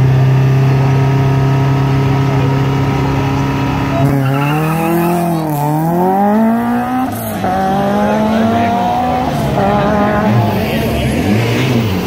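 Rally car engine held at steady high revs on the start line, then launching about four seconds in: the revs dip and climb hard through first gear, break at a gearchange about three seconds later, and climb again in the next gear as the car pulls away and fades.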